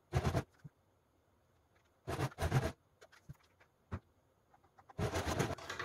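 Electric domestic sewing machine stitching lace trim onto a curved hem in short spurts: one brief run near the start, two quick runs about two seconds in, and a longer run near the end, with faint ticks of the fabric being handled in between.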